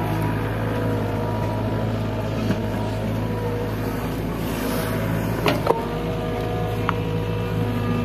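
SDLG crawler excavator's diesel engine running steadily under load while it digs and lifts a bucket of wet soil. A few short knocks come about five and a half seconds in, and one more near seven seconds.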